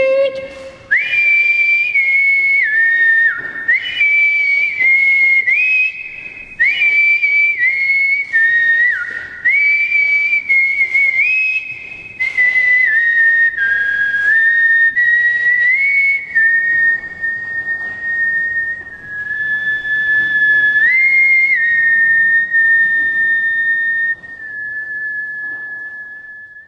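A person whistling a high tune in short repeated phrases, each swooping up and then stepping between notes. Later the phrases settle into a long held note, with one step up partway through, that fades out near the end.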